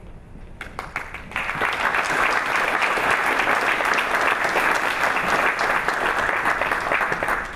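Audience applauding: a few scattered claps at first, swelling within a second or so into steady, dense applause that stops abruptly near the end.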